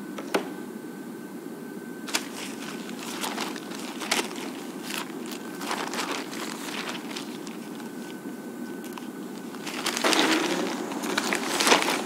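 Newspaper pages rustling and crinkling as they are handled, in several short bursts, with the longest and loudest stretch near the end.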